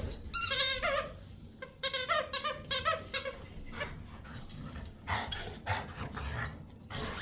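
Squeaker in a plush squirrel toy squeaking in quick, high squeals as a golden retriever bites on it, in two runs in the first few seconds, then a few softer, noisier sounds.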